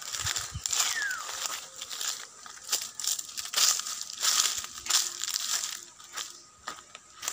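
Footsteps crunching through dry leaf litter and brush, with irregular crackles and snaps, and a short falling whistle about a second in.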